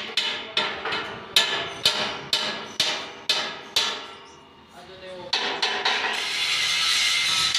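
Steel hammer striking the steel frame of a farm trolley, about two blows a second for some four seconds, then a short pause and a few quicker blows. A steady loud rushing noise takes over for the last second or so.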